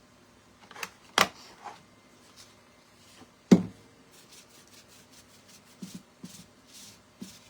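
Crafting handling noises: two sharp knocks or taps, the second about three and a half seconds in being the loudest, then a few faint short scratchy scuffs while the painted piece is rubbed to distress it.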